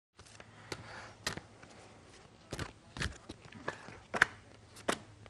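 Papers being shuffled and sorted in the hands: a series of sharp rustles and snaps at irregular intervals, over a low steady hum.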